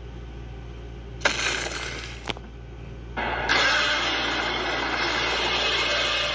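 Godzilla roar sound effect from an animated cartoon, replayed through a phone speaker: a harsh, noisy roar starts suddenly about a second in, and a louder, longer one follows from about three and a half seconds in.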